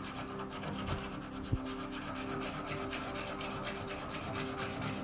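Small file rasping on brass in quick, even back-and-forth strokes, filing out the metal between two drilled holes in a brass hammer head to open them into one slot for the handle.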